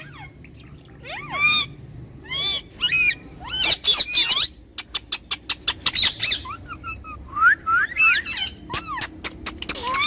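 Pet parrots squawking, a series of harsh, loud arching screeches, with a quick run of short sharp chirps about halfway through.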